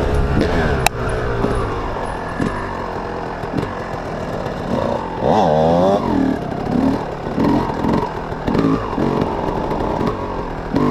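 Dirt bike engines running on a trail ride, the revs swinging up and back down about five seconds in, with a sharp click just under a second in.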